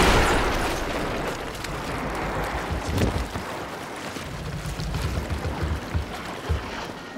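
Film sound effects of a shark attacking a boat: a loud crash of water at the start that dies away into churning sea and low rumbling, with a heavy knock about three seconds in.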